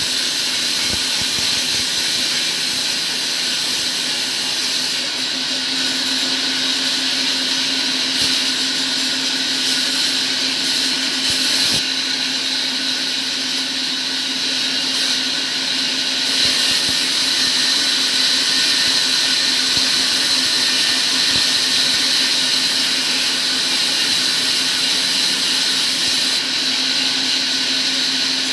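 Electric power tool running steadily without load changes: a constant low hum under a high whine and hiss.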